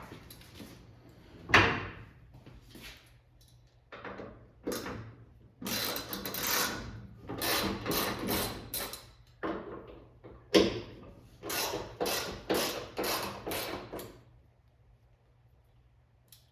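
Hands-on mechanical work on a car's trunk lid and its hinge bolts. A sharp knock comes about a second and a half in, then a run of short scraping and clunking strokes, several in quick succession, which stop near the end.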